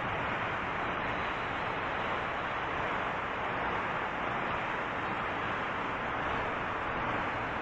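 Steady rushing noise from wind and rain picked up by a camera microphone, electronically processed into a special effect sound.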